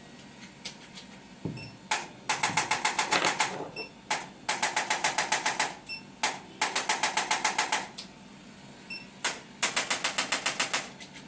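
Four runs of rapid mechanical clicking, about eight clicks a second for a second and a half each, each run led by a single click and repeating every two seconds or so.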